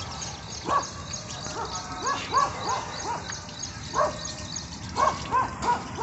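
Short, sharp animal calls, each rising and falling in pitch, come singly or in quick runs of two to four. Under them runs a steady train of high-pitched chirps, several a second.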